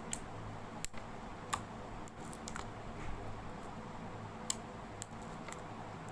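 Homemade glue-and-activator slime being kneaded and mixed by hand, giving off scattered sharp clicks and pops, about seven in six seconds, over a steady low hum.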